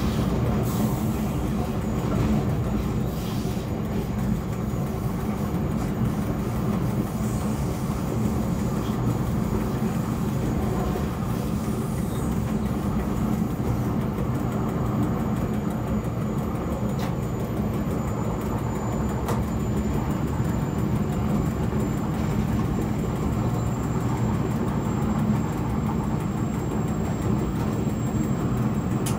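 An SLM Re 420 electric locomotive running at speed, heard from its driver's cab: a steady rumble of wheels and running gear on the track. About halfway through, a faint high-pitched whine comes in and slowly rises in pitch.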